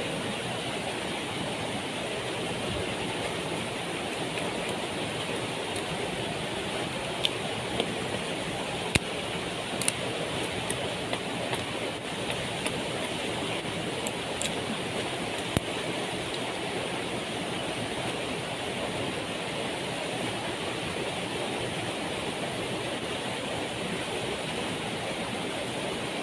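Steady rushing roar of a waterfall, with a few sharp clicks or knocks scattered through the middle.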